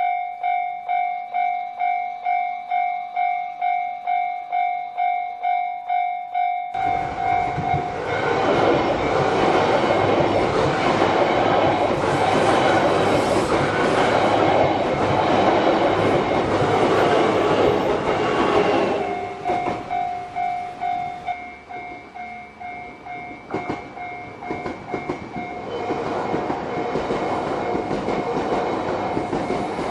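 A Japanese level-crossing warning bell pulses at about two strokes a second. About seven seconds in, an E3-series shinkansen train rushes through the crossing loudly for roughly twelve seconds and drowns out the bell. The bell then rings on while train noise builds again near the end.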